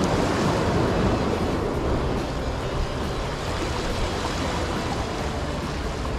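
Sea water washing and sloshing against jetty boulders: a steady rush of surf, a little louder in the first two seconds.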